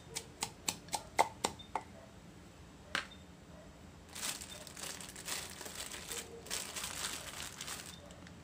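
Wooden pestle pounding in an earthenware som tam mortar, about seven quick knocks in the first two seconds and one more near the third second. From about four seconds in, plastic bags rustle and crinkle as ingredients are taken from a basket.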